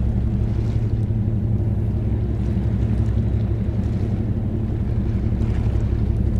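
Steady low drone of a large ship's diesel engines, a hum of several low pitches that holds even throughout.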